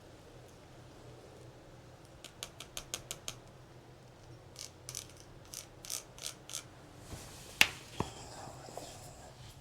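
Two quick runs of light sharp taps, about seven each, then a single louder sharp click with a second one about half a second later.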